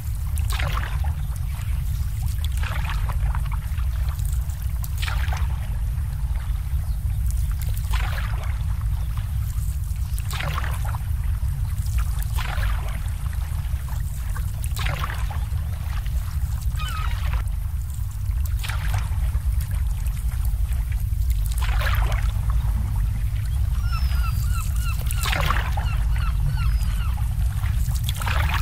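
Water lapping in small splashes every two to three seconds, over a steady low rumble. Near the end, a bird gives a quick run of short calls.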